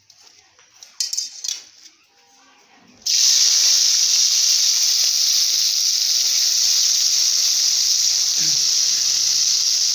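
Chopped onion-leaf stalks dropped into hot oil in a karai, sizzling loudly and steadily. The sizzle starts abruptly about three seconds in.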